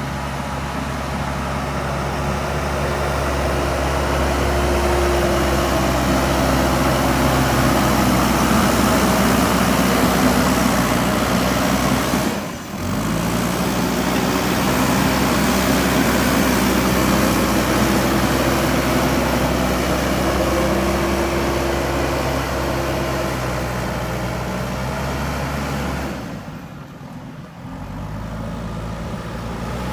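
JCB 3DX backhoe loader's diesel engine running steadily under working load. It drops away sharply for a moment about twelve seconds in and goes quieter for a couple of seconds near the end.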